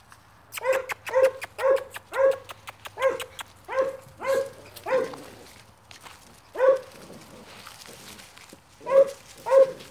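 Staghound–pit bull cross puppy barking in short, high yaps: a quick run of about eight roughly half a second apart, a single bark, then two more near the end.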